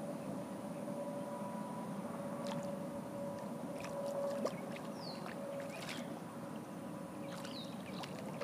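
Faint water sounds from a swimming dog diving and surfacing: soft lapping with a few small splashes in the middle, over a steady faint hum.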